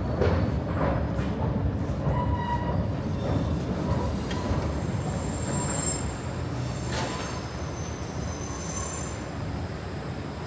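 A train running nearby, its wheels squealing on the rails in thin high tones over a steady rumble. It fades gradually as the train moves away.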